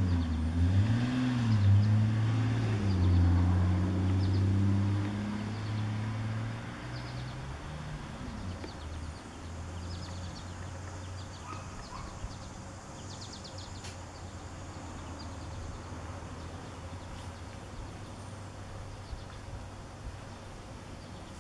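A motor vehicle passing on a nearby road, its engine note rising and falling and loudest in the first few seconds, then fading after about seven seconds to a steady low traffic hum. A few faint bird chirps come near the middle.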